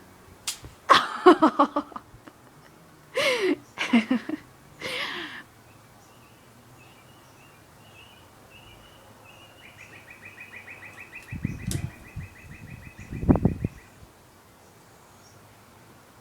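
Pet bird giving three loud, pitched squawking calls in the first five seconds, then a quieter fast chattering trill, with a few loud low thumps a little before the end.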